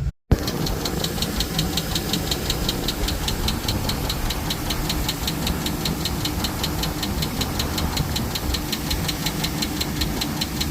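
Chevy Silverado engine idling steadily with a fast, even ticking over it: lifter tick.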